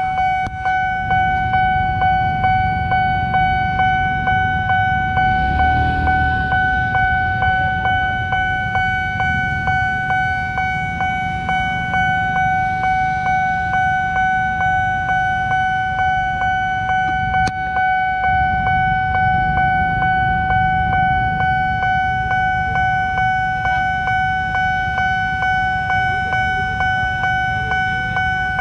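Railway level-crossing warning bell ringing without pause as a fast, evenly repeating electronic ding, signalling that a train is approaching and the barrier is closed. Motorbike engines idle underneath, swelling now and then as a vehicle passes close by.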